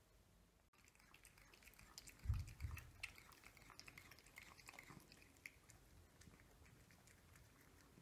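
Cats crunching dry kibble, a run of small crackling crunches, with a couple of dull thumps about two seconds in.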